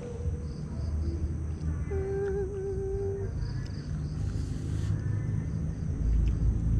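Night-time outdoor ambience: a steady low rumble with insects chirping faintly in a quick, even pulse. About two seconds in, a person hums one held "mmm" for over a second. Near the end a much louder low rumble sets in.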